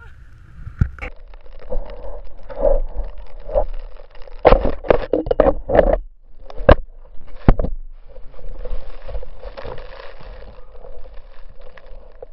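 Action camera being handled and tumbled in deep snow: rustling, scraping and sharp knocks on the camera body. The knocks come thick and loud in the middle, with steadier rustling after.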